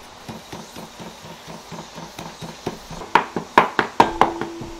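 Cleaver chopping meat on a chopping board, mincing it: a steady run of quick strokes, light at first and then loud, sharp chops about three a second from about three seconds in.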